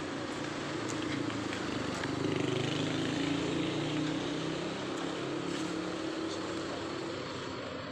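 Ambulance engine idling steadily.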